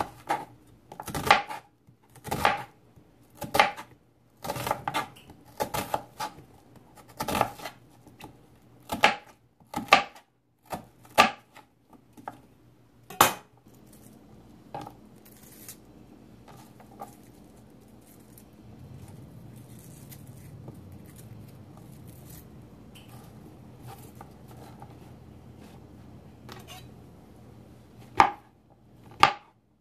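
A knife slicing through an onion and knocking on a plastic cutting board, about one cut a second, with a quieter stretch in the middle and two more cuts near the end.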